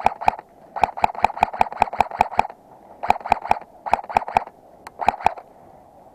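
Airsoft gun firing runs of quick shots, about five or six a second, with short pauses between the runs; the last shots are about five seconds in.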